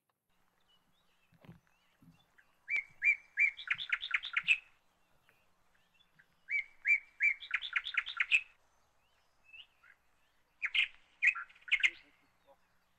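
A songbird singing three phrases a few seconds apart. Each phrase opens with several evenly spaced clear notes and runs into a quicker series of higher notes, lasting about two seconds.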